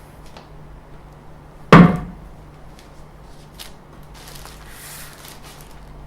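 A single loud thump about two seconds in, as something is knocked or set down hard during unboxing. It is followed by soft rustling and faint clicks of the packaging being handled, over a steady low hum.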